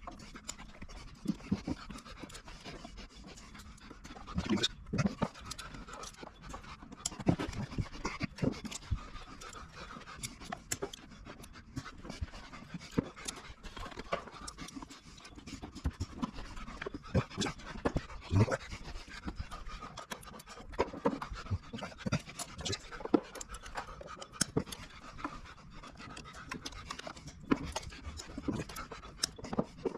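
Irregular knocks and clicks as battery modules and their hardware are handled and seated onto the dowels in the MG ZS EV's high-voltage battery pack, over a steady breathy sound.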